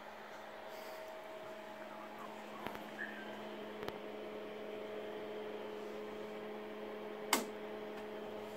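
Steady electrical hum from a running Siemens MS5 traffic signal controller cabinet, with a second hum tone joining about four seconds in. A few light clicks, then one sharp click about seven seconds in.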